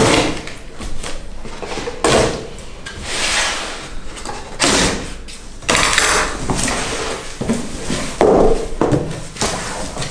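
Packing tape on a large cardboard box being slit open, then the cardboard flaps pulled up and folded back: an irregular string of scraping and rustling cardboard with a few sharp knocks.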